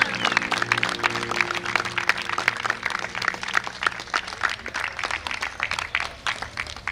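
Spectators applauding with many separate claps, tapering toward the end. Music plays underneath at first and fades out within the first couple of seconds.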